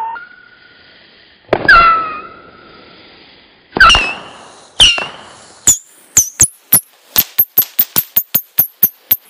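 Saturn missile battery firing its tubes. Each shot is a sharp crack followed by a short whistle falling in pitch. The first few shots are spaced out and sound slowed and low; from about six seconds in they come in a rapid string of higher-pitched cracks, about five a second.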